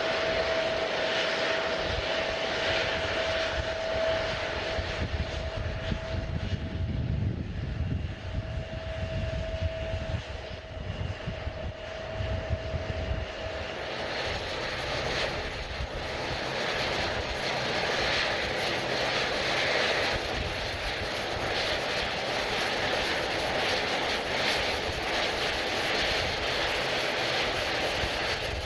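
Airliner engines running, with a steady whine over the first half. About fourteen seconds in this gives way to a broader, louder rush of engine noise.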